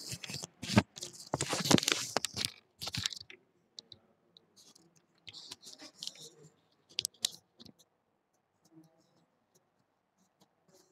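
Close rustling and scraping noises mixed with sharp clicks, loudest in the first three seconds, then fainter scattered clicks.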